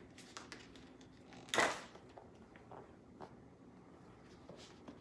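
Quiet handling of unboxed items: a single short rustle about one and a half seconds in, and a few faint small clicks.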